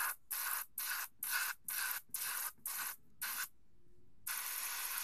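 Single-action Paasche H-series airbrush hissing in short bursts of compressed air, about two a second, as the trigger is pressed and let go repeatedly, then one longer burst after a short pause: the airbrush is being primed to siphon paint.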